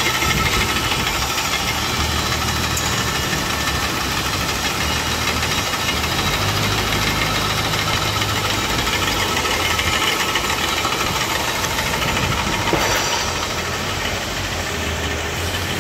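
Bobbin-winding machines for braiding running steadily: a constant mechanical whirr of motor and spinning spool. The noise changes and drops a little about 13 seconds in.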